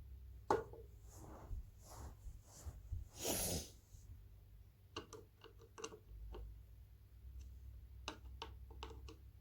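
Small clicks and taps of hand work on a ceiling fan as its blade screws are tightened, coming in quick clusters in the second half, with one short breathy noise a little after three seconds in.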